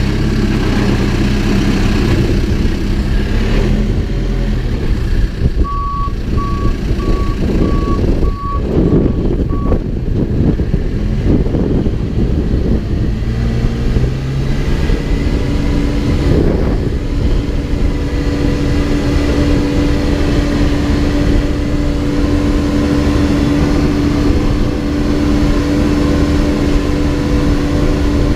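Backhoe's diesel engine running loudly as the machine works, with its reversing alarm beeping about six times, a few seconds in. From about halfway the engine settles into a steady, even pitch.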